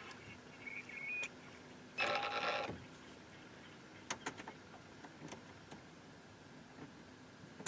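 Spinning reel's drag buzzing briefly as a hooked blue catfish pulls line, once about two seconds in, then a few faint clicks from the reel and rod.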